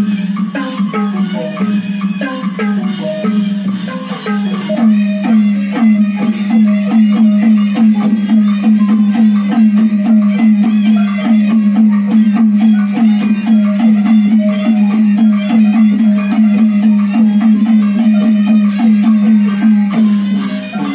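Burmese traditional music with quick, repeated mallet-struck notes over a steady low tone, played for a marionette dance; it grows louder and busier about five seconds in.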